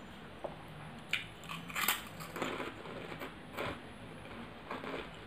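A person chewing a mouthful of food with the hand close to the mouth, irregular crunchy, crackly bites, the loudest about two seconds in.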